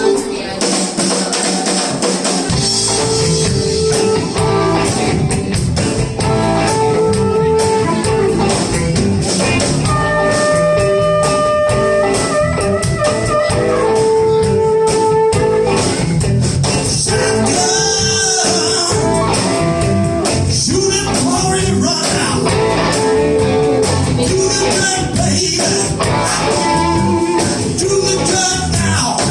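Live blues band playing an up-tempo groove. The low end of bass and drums kicks in about two and a half seconds in, with long held lead notes over the band.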